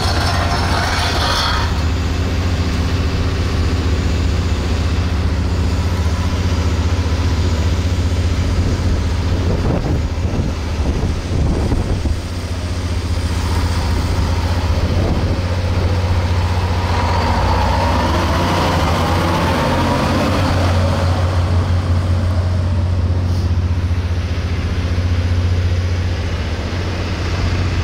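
A large vehicle's engine idling steadily with a deep, even hum. A fainter tone glides downward in pitch about two-thirds of the way through.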